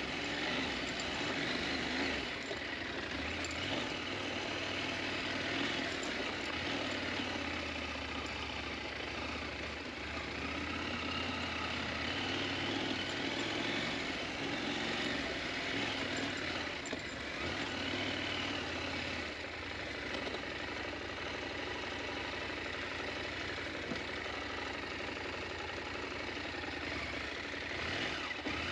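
KTM 890 Adventure motorcycle engine running as the bike is ridden off-road, its pitch rising and falling with the throttle.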